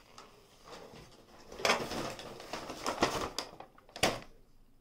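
Paper rustling and crinkling in irregular bursts as a brown paper takeout bag and paper napkins are handled, with a single sharp knock about four seconds in.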